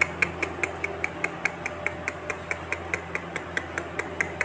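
Rapid, even mechanical ticking, about five ticks a second, over a low steady hum.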